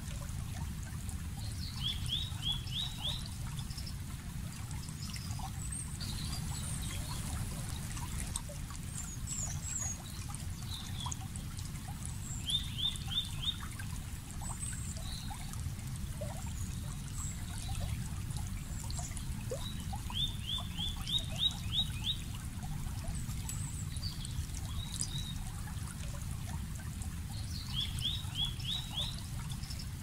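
Running creek water with a steady low rush. A bird repeats a short phrase of four to six quick rising notes four times, roughly every eight seconds, over scattered higher chirps from other birds.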